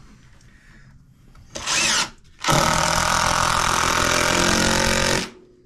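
Cordless drill/driver driving a screw into wooden floor blocking. A short half-second burst comes first, then a steady run of nearly three seconds that stops abruptly.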